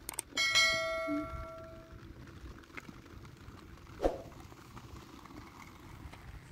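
A metal object is struck once and rings for about a second and a half. It is followed by a single sharp knock about four seconds in.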